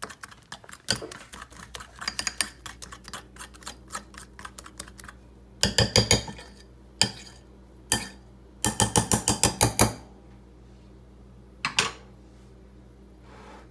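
A fork beating pancake batter in a bowl, clinking against the bowl's sides in fast runs of several strokes a second, with the loudest bursts about halfway through.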